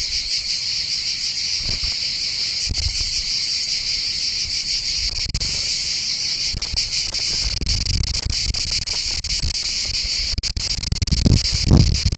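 Steady, dense chorus of insects chirring high-pitched without a break. Low thumps and rumbles come in near the end.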